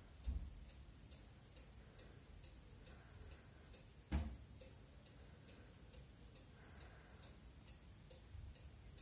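Faint, regular ticking, about two and a half ticks a second, with two soft low thumps, one just after the start and one about four seconds in.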